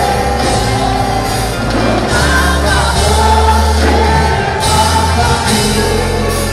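Church congregation and worship team singing a gospel worship song together, with instrumental accompaniment and held bass notes that change every second or so.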